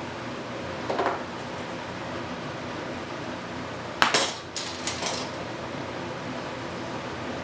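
Small hard objects clattering on a workbench: a soft knock about a second in, then a sharp clatter about four seconds in, followed by a few lighter clicks, over a steady shop background hiss.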